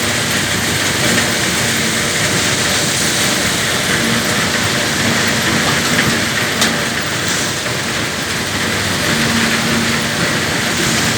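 Caterpillar 320 GC excavator's diesel engine running steadily under a loud, even rushing noise, with an on-and-off hum and one sharp click about six and a half seconds in.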